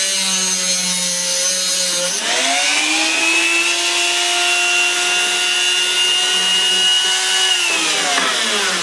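Dremel rotary tool with a small cutting wheel cutting into the metal body of a combination lock, its motor giving a steady whine. About two seconds in the whine jumps up in pitch and holds there, as it does when the wheel runs free off the cut. Near the end the pitch falls as the tool winds down.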